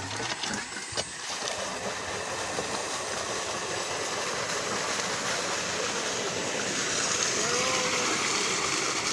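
Steady rush of water gushing from a diesel-driven pump's outlet pipe into a concrete tank, a little louder near the end.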